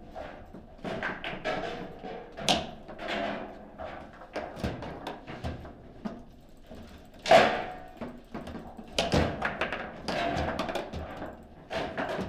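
Table football in play: irregular knocks and clacks of the hard ball against the plastic figures and table walls, and of the rods being jerked and stopped. The loudest knock comes about seven seconds in, with a busy run of clacks a couple of seconds later.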